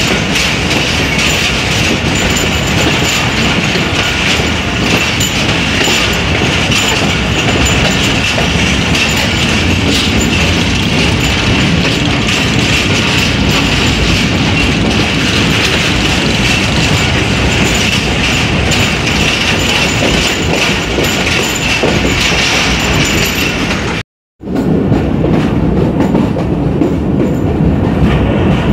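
Passenger train running at speed on its rails, heard from an open carriage window: a steady rattle and rush of wheels on track. The sound cuts out briefly about three-quarters of the way through, and after that the running noise is deeper.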